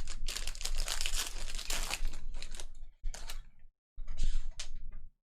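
Plastic trading-card pack wrapper being torn open and crinkled in the hands: a long stretch of crackling, then two shorter crinkles.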